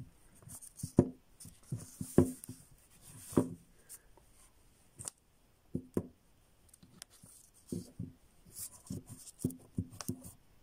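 Plastic horse figurine being handled and turned, its hooves tapping and scraping on the base: a scattering of small, irregular knocks and clicks with light rubbing in between.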